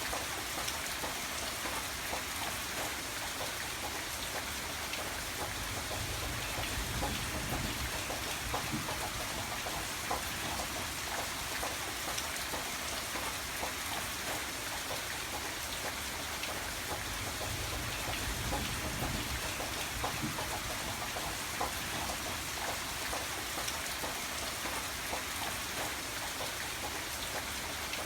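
Steady rain falling, with many individual drops pattering in a continuous hiss. A low rumble swells and fades twice beneath it.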